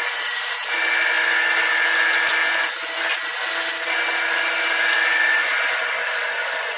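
Band saw running and ripping a half-inch strip off a hardwood board, a steady whine and hiss of the blade cutting that eases off near the end.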